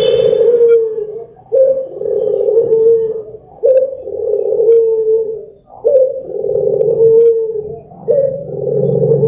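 Barbary dove (puter) cooing: a run of long, low coos, each starting with a short rising note and drawing out into a long falling one, about one every two seconds.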